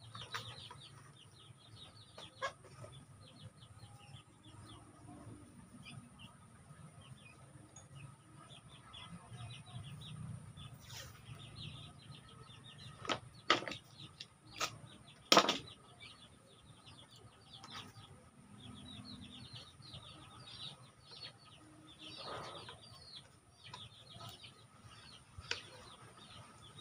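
Young chickens peeping in a steady stream of short high chirps. A few sharp clicks and knocks from wiring and tape being handled on the board, the loudest about fifteen seconds in.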